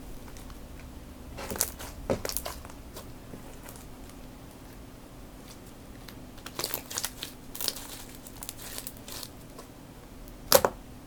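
Slime being poked and squished by hand in a plastic palette: scattered short crackly, crinkly squishes and clicks in small clusters, with one sharper, louder one near the end.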